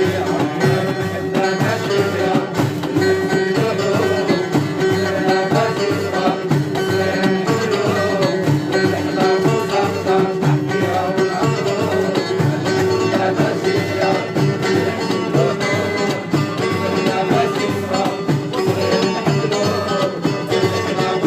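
Live traditional music with plucked string instruments playing a steady, dense rhythm.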